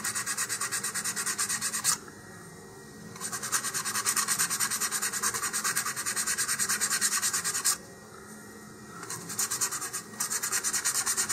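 100-grit sandpaper rubbed by hand over the edge of a laser-cut cardboard ring in quick, even back-and-forth strokes, bevelling the edge. The sanding stops for about a second twice, about two seconds in and again about eight seconds in.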